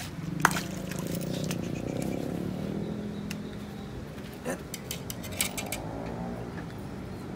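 Handling sounds as a small peacock bass is landed and unhooked: a sharp tap about half a second in, then a flurry of clicks and rattles around the middle.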